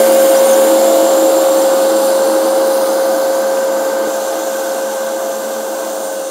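Diesel engines of a river towboat running under way, a steady drone with one strong held tone over churning propeller wash, fading slowly as the boat moves away.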